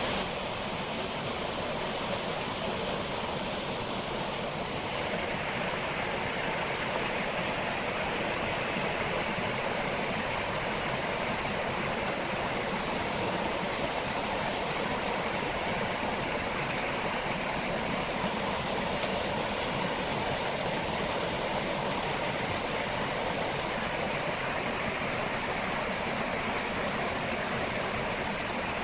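Waterfall pouring steadily: an even, unbroken rushing of water.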